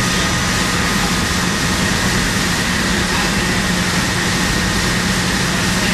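Steady, loud mechanical drone: an even rushing noise with a low hum and a faint high whine, unchanging throughout.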